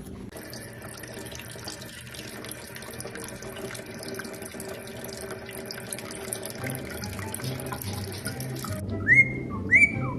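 Water running from a tap in a steady hiss that cuts off near the end, followed by two short, loud whistles that rise and then fall.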